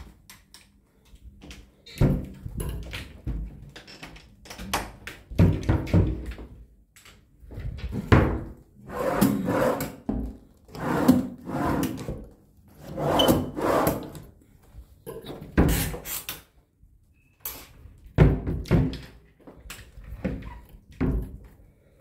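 Wooden wardrobe doors and drawers being slid open and pushed shut: a run of knocks and bumps with longer scraping slides, busiest in the middle.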